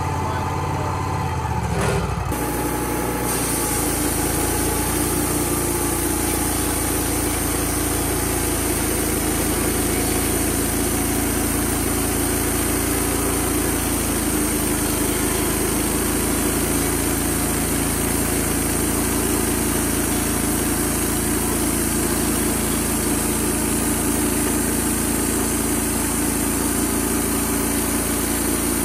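Wood-Mizer LT35HD band sawmill running steadily while its band blade saws through a red oak log. About two seconds in, a high hiss joins the steady engine note and holds.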